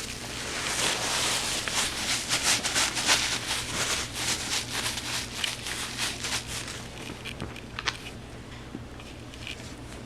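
Puppies scuffling at play, a rapid patter of paws and claws with rustling, loudest in the first half and dying down after about seven seconds.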